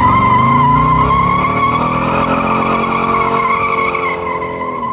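Car doing a burnout: the engine held at high revs while the spinning rear tyres squeal in one steady high tone. The squeal and engine cut off suddenly near the end.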